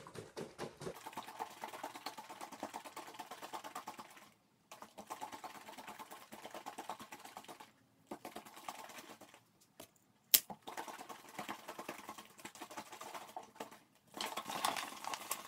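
A water-filled plastic bottle shaken hard by hand: a faint, rapid, even run of sloshing strokes. It stops briefly a few times, and there is one sharp click about ten seconds in.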